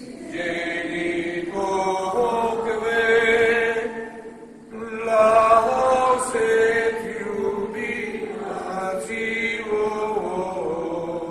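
Unaccompanied voices singing a slow liturgical chant in held notes, in two phrases with a short break about four and a half seconds in.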